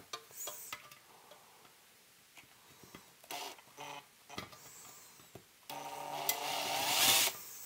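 Light taps and clicks of a sheet-metal chassis being handled. Then, near the end, an electric drill runs for about a second and a half, getting louder before it stops, as a larger bit deburrs a small drilled hole from the inside of the chassis.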